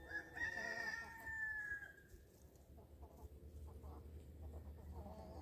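A rooster crowing once, a single long call of about two seconds near the start that holds its pitch and then falls away.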